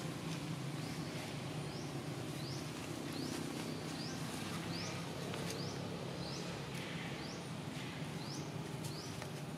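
Outdoor ambience. A short, high, rising chirp from a small animal repeats about a dozen times at uneven intervals, over a steady low hum.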